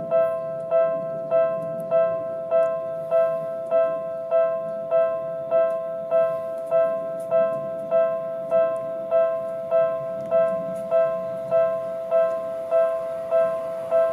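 Electronic railway level-crossing alarm ringing, an even, ringing two-tone strike repeated about one and a half times a second, the warning for a train approaching the crossing.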